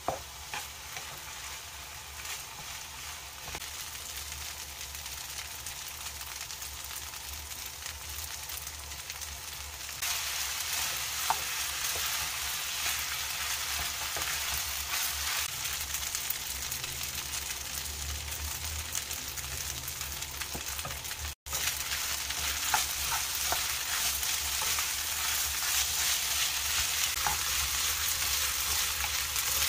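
Fried rice sizzling in a nonstick pan while it is stirred and turned with a wooden spatula, with light scrapes and taps of the utensils on the pan. The sizzle grows louder about a third of the way in, and the sound cuts out for an instant later on.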